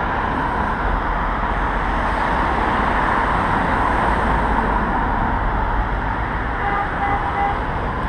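Steady city road traffic: cars driving past at a busy intersection. A few short high beeps sound about seven seconds in.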